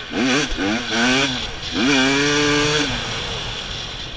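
Dirt bike engine revving up and easing off several times as it is ridden over a dirt trail, with a longer steady pull at higher revs about two seconds in.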